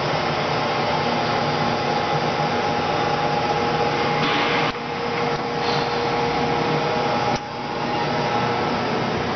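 Steady machine-shop background noise: a continuous whirring hiss and hum with faint steady tones and no speech. The level drops abruptly twice, about halfway through and again about three-quarters through, and each time recovers.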